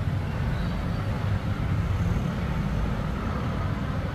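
Steady low rumble with a light hiss above it.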